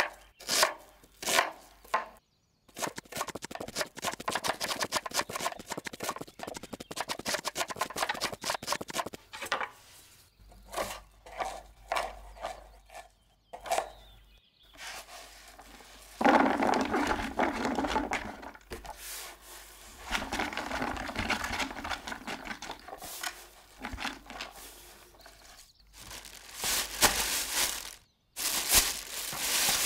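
Chef's knives chopping onion on a wooden cutting board. A few single strokes, then a fast run of rapid chops for several seconds, then slower strokes. In the later part there are longer scraping and rustling stretches, with a plastic bag being handled near the end.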